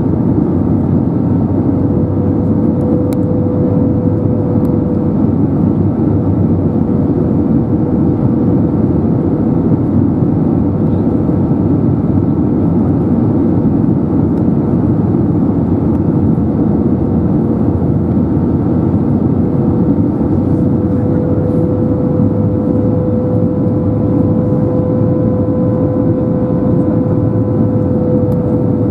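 Steady cabin roar inside an Airbus A320-271N during descent, from its Pratt & Whitney PW1100G geared turbofan engines and the airflow over the fuselage. A faint humming tone sits in the roar, weakening midway and then growing again.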